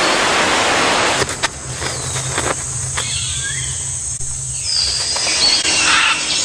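Tropical rainforest ambience: a steady high insect buzz with several whistled bird calls, the calls gliding up and down, over a low steady hum.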